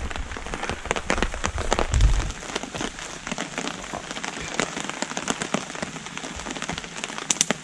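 Heavy rain pattering steadily on a tarp overhead, dotted with irregular sharp clicks and pops. A low thump about two seconds in and a cluster of louder clicks near the end.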